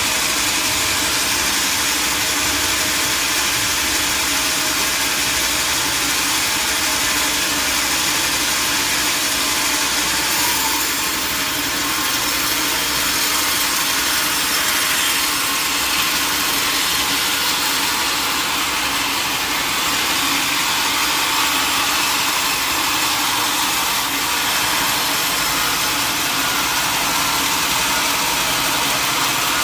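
Sawmill machinery running steadily with a saw cutting through wood, an even, unbroken noise with no pauses.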